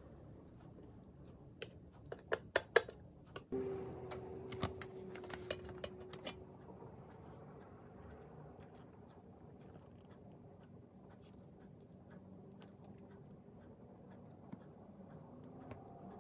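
Tableware handled during a meal: a quick run of sharp clicks and taps of chopsticks and dishes about two to three seconds in, then a scrape with clinks as a ceramic plate is moved, followed by faint room tone with occasional light ticks.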